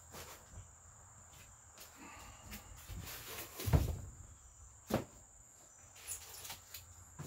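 Packaging being handled: a few knocks and thumps, the loudest about three and a half seconds in, with a rustle around it, over a faint steady high whine.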